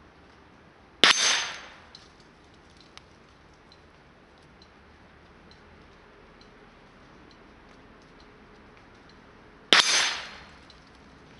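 Two .22 LR rifle shots striking a hanging steel target plate, about eight and a half seconds apart: each a sharp crack followed by a short metallic ring that dies away within about half a second.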